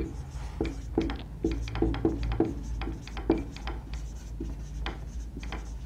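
Marker pen writing on a whiteboard: a run of short, irregular strokes as a line of handwriting is put down.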